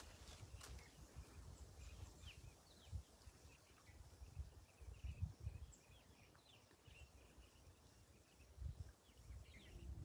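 Near silence: faint outdoor ambience with soft low rumbles now and then and scattered faint high chirps.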